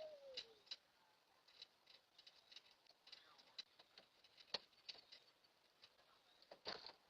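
Near silence, broken by faint, irregular light ticks and taps, the clearest about halfway through and a short cluster near the end.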